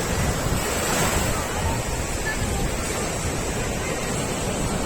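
Ocean surf washing onto a beach: a steady, continuous rush of breaking waves.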